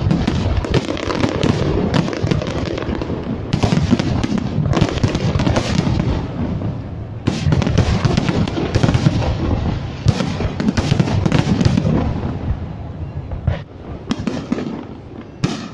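A dense barrage of overlapping bangs from many aerial firework shells bursting in quick succession. It thins out a little near the end.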